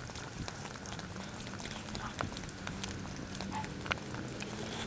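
Steady low hum of a running outdoor central air conditioner unit, growing a little stronger partway through, with irregular footsteps on pavement.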